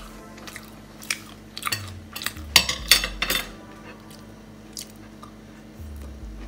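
A knife and fork clink and scrape on a plate while cutting through a grilled flour-tortilla burrito. The clicks and scrapes come in scattered clusters and are loudest about two and a half to three and a half seconds in, over a steady low hum.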